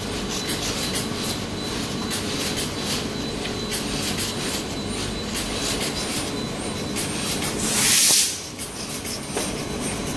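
A small brush scrubbing wet cleaning solution over a steel SMT solder-paste stencil, with scratchy strokes over a steady mechanical hum. A loud, short hiss comes about eight seconds in.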